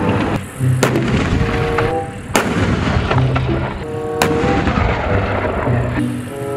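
Background music with a steady bass line, cut through by about four sharp gunfire-like bangs from a tank-range display.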